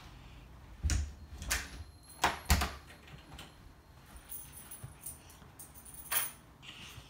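Handling noise: a few knocks and light rattles, bunched in the first three seconds, with one more about six seconds in.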